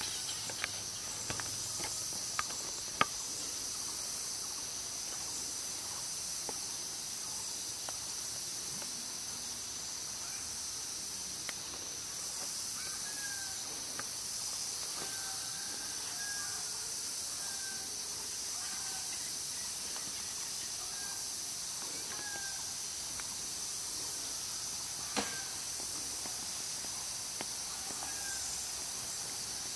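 Steady high-pitched insect drone, with faint short bird-like chirps repeating every second or two from about midway. A few light clicks come early on and one sharper click near the end.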